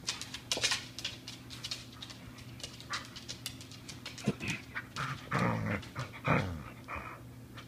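Border collie panting while mouthing and chewing a braided rope toy, with scattered small clicks and scuffles. There are a couple of louder breathy bursts a little after five and six seconds in.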